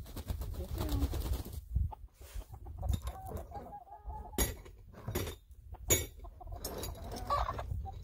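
Backyard hens clucking around the feet, with a few sharp knocks as things are handled on the box, and wind buffeting the microphone with a low rumble in the first couple of seconds.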